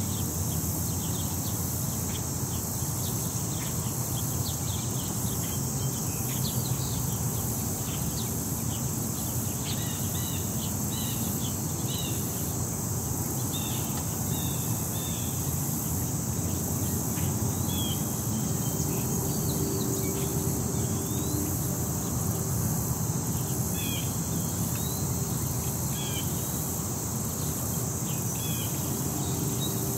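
Park ambience in the city: a steady high insect chorus, with short scattered bird chirps, over a low steady rumble of distant city traffic.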